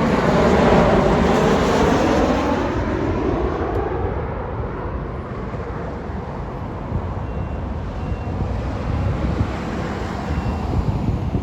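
Boeing 737-800 jet airliner passing close on final approach, its engine noise loudest in the first few seconds and sweeping in pitch as it goes by, then fading to a distant rumble. There is wind noise on the microphone.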